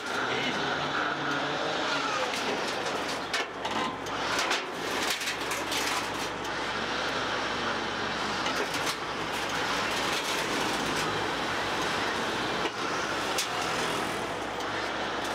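Car-carrier truck's engine idling steadily, with a few sharp metal knocks from the trailer deck, the clearest about three to five seconds in and again near nine seconds.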